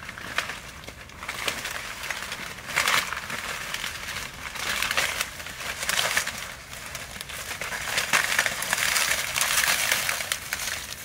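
Dry cornstalks and leaves crackling and rustling as a person pushes through a field of dried standing corn, in irregular swells.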